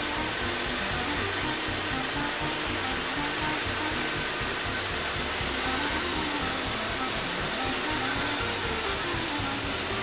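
Background music with a melody, over the steady hiss of a Wood-Mizer LT40HD band sawmill running as its saw head travels along the track.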